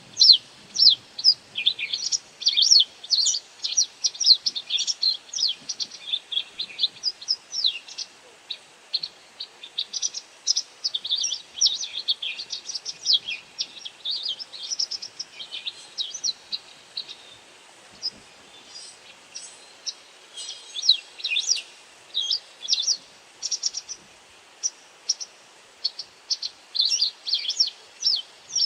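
White wagtail giving short, sharp, high call notes in quick irregular series, with a brief thinner spell about two-thirds of the way through.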